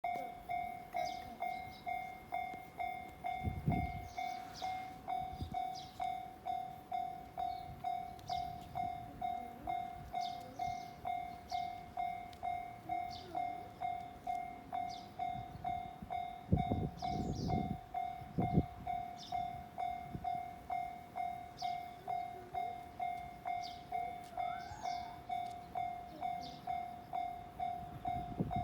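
Japanese railway level-crossing warning bell ringing: one electronic ding repeated evenly, a little under twice a second, the signal that a train is approaching. A few low rumbles come in about four seconds in and again past the middle.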